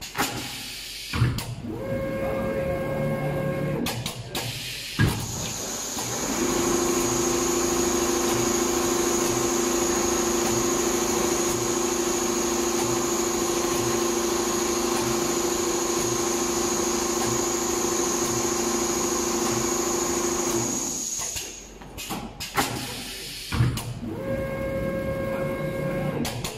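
Multi-head computerised pattern sewing machine stitching leather: a steady machine hum with a high whine for a long stretch, with a change of pitch in shorter runs near the start and end. A few sharp clunks fall between the runs.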